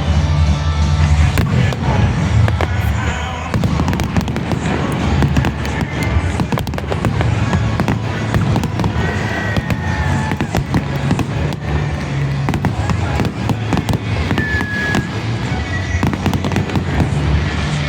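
Fireworks display: shells bursting and crackling in quick, dense succession, over music with a steady low bass.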